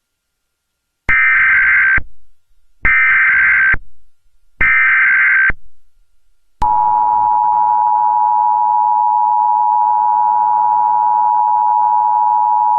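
Emergency Alert System tones: three short warbling bursts of SAME header data, each just under a second, then about halfway through the steady two-tone attention signal begins and holds.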